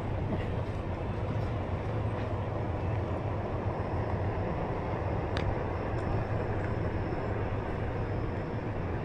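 Onewheel electric board rolling along, a steady low rumble from its tyre on the pavement, with one sharp click about five and a half seconds in.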